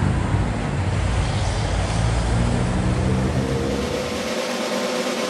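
Steady road-traffic noise with a low rumble, which cuts out about four seconds in as orchestral music fades in.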